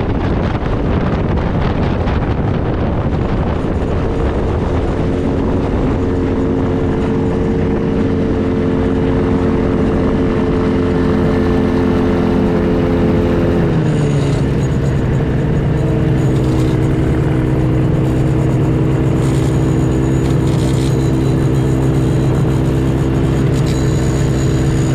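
Aerolite 103 ultralight's engine and propeller running at low power while the aircraft rolls along the runway, with rushing wind at first. About 13 seconds in, the engine note drops to a lower, steady idle.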